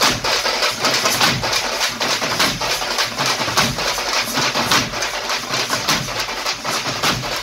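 Tamate drum ensemble, frame drums beaten with sticks in a fast, dense rhythm of many strokes a second.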